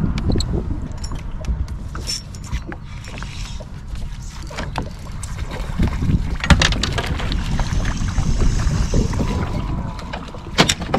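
Wind buffeting the microphone, with clicks and knocks from a spinning rod and reel as a fish is hooked and reeled in. There is a sharp knock about six and a half seconds in and another near the end.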